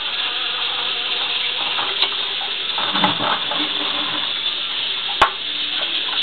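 Plastic fork stirring vegetable peels in a small aluminium pot, with three sharp clicks of the fork against the metal, about two, three and five seconds in, over a steady hiss.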